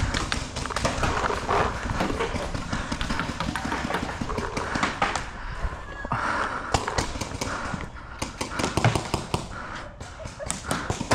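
Paintball markers firing: strings of sharp pops, thickest in the second half, over a steady rumble of movement on the body-worn camera.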